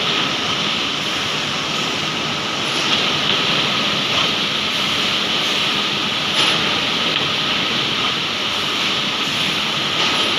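Industrial machinery on an MDF board processing line running steadily: a loud, even hiss with a faint steady tone, and a few brief knocks.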